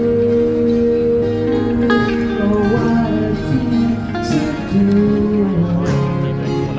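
Music with guitar playing, held notes changing pitch every second or so.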